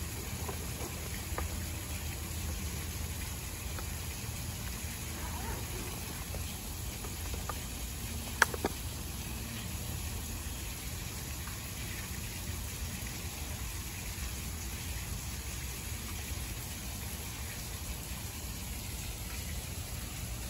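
Steady rushing of a small waterfall, with one sharp click about eight and a half seconds in.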